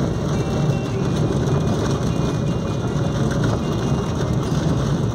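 Steady low rumble of a car driving over a wet cobblestone street, heard from inside the cabin.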